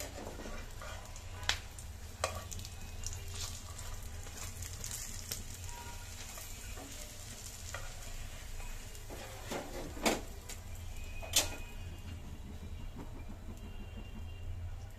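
Mughlai egg paratha sizzling as it fries in oil in a pan, with a metal slotted spatula scraping and clacking against the pan: two sharp clacks early on and two louder ones about two-thirds through.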